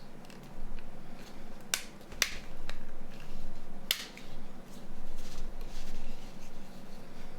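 Hands working the plastic parts of a Nokia E60 phone during reassembly: sharp clicks about two seconds in, again a moment later and near four seconds, amid rubbing and handling noise.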